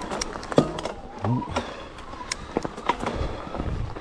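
Mountain bike riding over a rough, leaf-covered dirt trail: tyre rumble with frequent clicks and rattles from the bike jolting over bumps.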